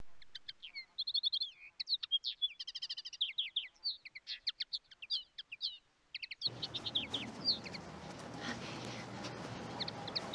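Songbirds chirping and warbling in quick, varied phrases. About six and a half seconds in, a steady background hiss of outdoor ambience comes in beneath them.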